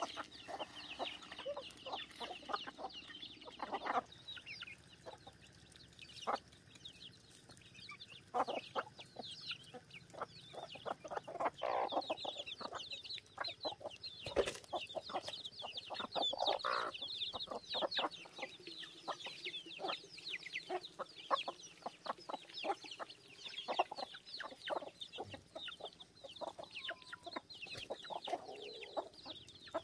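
Chickens clucking, with many short high chirps throughout and one sharp knock about halfway through.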